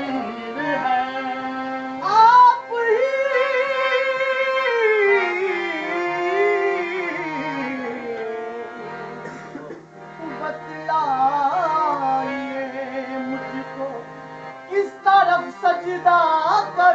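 Man singing a slow, gliding devotional melody to a harmonium's held chords and drone, with a few sharp percussive hits near the end.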